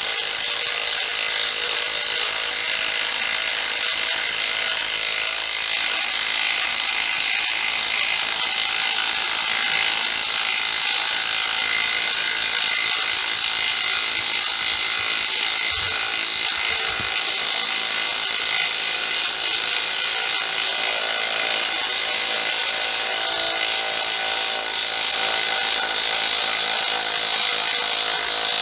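Compact DeWalt Atomic 1/2-inch cordless impact wrench hammering steadily on its high setting as it drives a 7-inch lag bolt into a timber beam. The bolt runs into a knot in the wood, and the wrench struggles to sink it.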